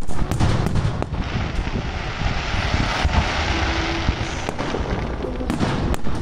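Aerial firework shells bursting, several sharp booms near the start and again toward the end, with a dense crackling hiss in between.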